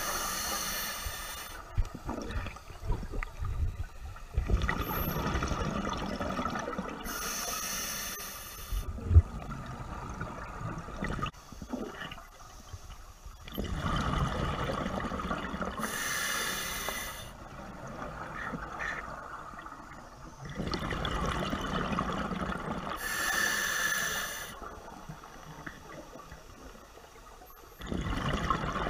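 Scuba regulator breathing heard underwater: a short hiss of inhaled air through the demand valve about every seven or eight seconds, each followed by a longer bubbling rumble of exhaled air, about four breaths in all.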